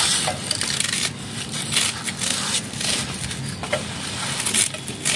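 Kitchen knife cutting through a tough, fibrous banana stem, giving repeated irregular crunching cuts.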